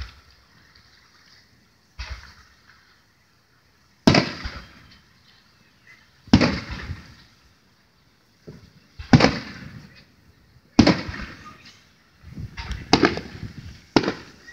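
Aerial firework shells bursting, about eight booms one to three seconds apart, each trailing off in a rumble of echo over a second or so; the last few come close together near the end.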